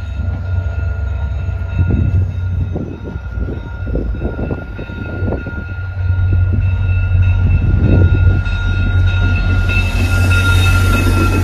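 VIA Rail EMD F40PH diesel locomotive approaching on an arriving passenger train: a steady low engine rumble with a steady high whine over it, growing louder about six seconds in. Near the end a rushing hiss comes up as the train draws close.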